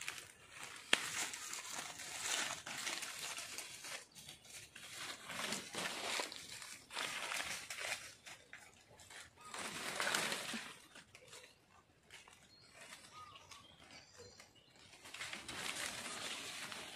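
Leaves and twigs rustling in irregular bursts as yanang vines are pulled by hand from young trees and their leaves stripped off, with one sharp click about a second in.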